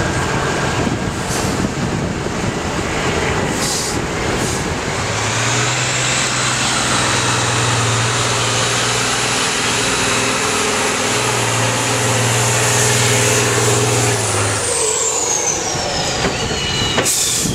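Diesel engine of an eight-wheeled off-road trial truck working hard on a muddy slope, with a high whine that climbs about five seconds in, holds, and falls away steadily after about fourteen seconds as the revs drop.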